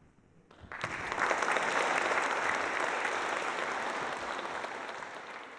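Audience applauding: the clapping breaks out about a second in, holds steady, then thins out and fades near the end.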